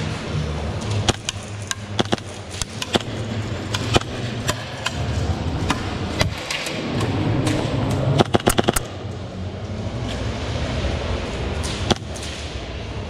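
Airsoft gunfire: scattered single sharp cracks of shots and BB hits, with a short rapid full-auto burst of about six shots a little past the middle, over a steady low rumble.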